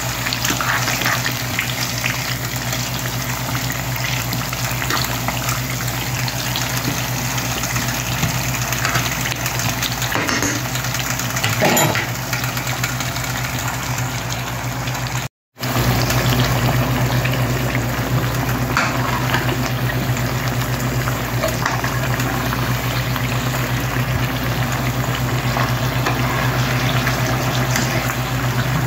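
Sweet potato slices frying in hot oil and brown sugar in a pan: a steady sizzle and bubbling over a low steady hum. The sound cuts out for a moment about halfway through.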